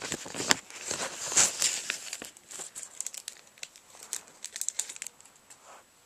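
A crinkly Subway kids' meal bag being handled and rustled, giving irregular crackles that thin out toward the end.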